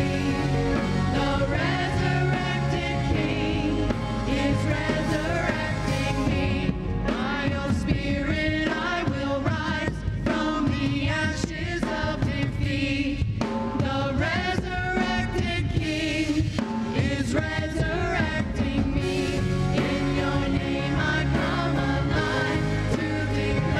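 Live worship music: a church band's drum kit and acoustic guitar playing under singing voices, continuous and steady in loudness.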